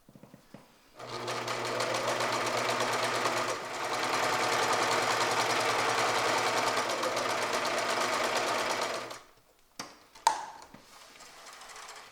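Electric sewing machine stitching a seam in burlap, running steadily for about eight seconds and then stopping, followed by a couple of short clicks.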